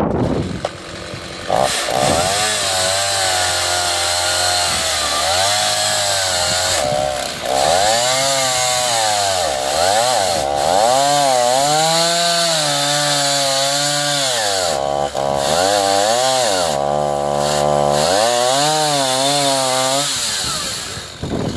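Chainsaw mounted in an Alaskan sawmill running under load as it rips a log lengthwise, its engine pitch repeatedly sagging and climbing again; the saw stops near the end.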